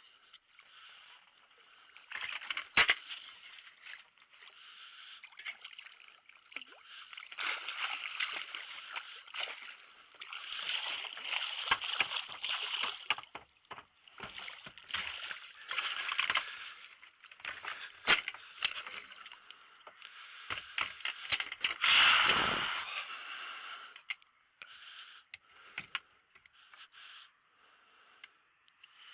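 Water sloshing and splashing against a small boat, in uneven waves, with a few sharp knocks and a louder thump about 22 seconds in.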